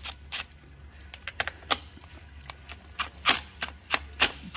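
Irregular sharp clicks and knocks from a cordless ratchet working a transmission oil-pan bolt loose, over a low steady hum.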